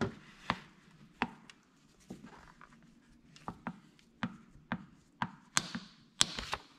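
Hand squeegee pressed and dragged over smoke vinyl tint film on a tail light, giving a string of sharp clicks and taps at uneven spacing, with two short scrapes near the end.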